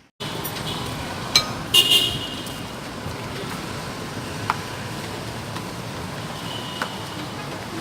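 Road traffic noise with a short horn toot about two seconds in, a few sharp clicks and a faint tone near the end.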